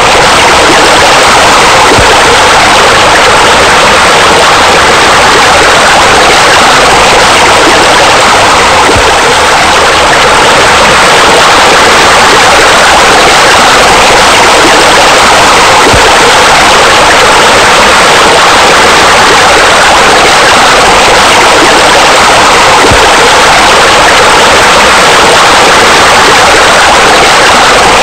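Loud, steady rush of pouring water, as from a spa spilling over its edge into a pool, continuous and unchanging.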